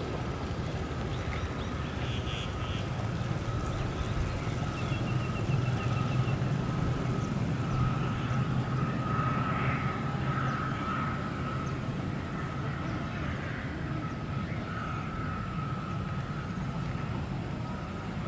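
Boeing 737-400's CFM56-3 jet engines running at low power: a steady rumble with a thin whine that swells and fades.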